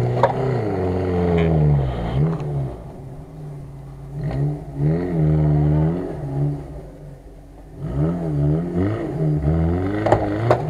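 SUV engine revving hard under load in three rising and falling surges while towing a stuck off-roader out of deep mud on a tow strap.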